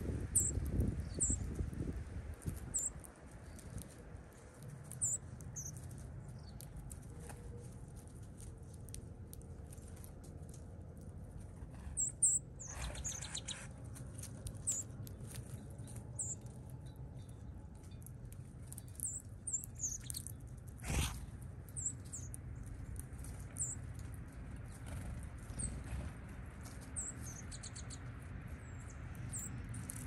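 Northern cardinals giving short, high chip notes, scattered one to a few at a time every second or so, over a low steady rustle in the leaf litter. Two louder brief rustles stand out, about twelve and twenty-one seconds in.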